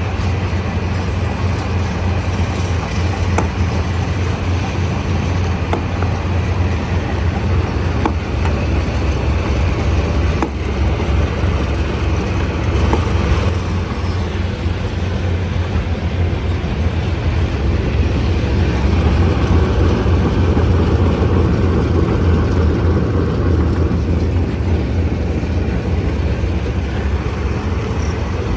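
Stone crusher running: a steady, loud machine drone with a strong low hum, and a few scattered sharp knocks.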